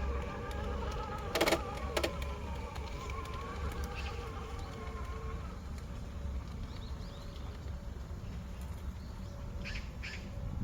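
Electric motor and gear whine of an RC rock crawler, a steady whine wavering with the throttle and fading out about halfway. Two sharp knocks come about a second and a half in.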